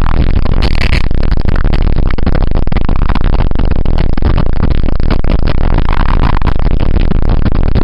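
Loud, dense background music at a constant level, without a break.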